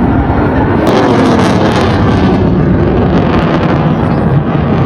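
Jet aircraft engine noise: a loud, steady roar from a fast jet's display pass, with a crackle in it between about one and four seconds in.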